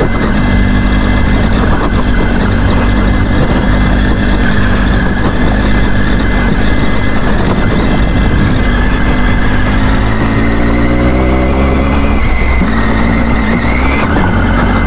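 Triumph Tiger 800's three-cylinder engine running as the motorcycle climbs, under a steady rush of wind and road noise. The engine note rises about two-thirds of the way through as it picks up revs.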